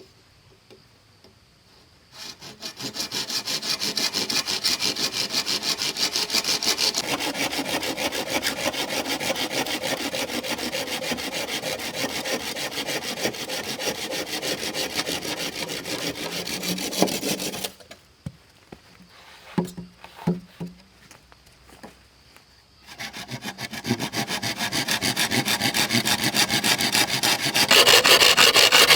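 A hand tool working wood in rapid back-and-forth rasping strokes, sawing or scraping. It starts about two seconds in and stops for a few seconds partway with a few knocks. It then resumes, loudest near the end.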